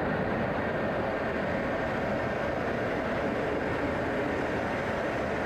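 Steady jet engine and airflow rumble heard from inside a military jet's cockpit, even and unbroken.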